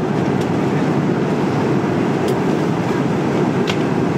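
Steady cabin noise of an Airbus A330-300 airliner in flight, a constant rumble of engines and airflow, with two faint clicks, one about two seconds in and one near the end.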